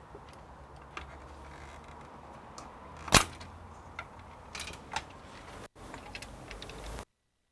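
Scattered small clicks and knocks of hands working on computer hardware, with one sharp click about three seconds in. The sound cuts out abruptly near the end.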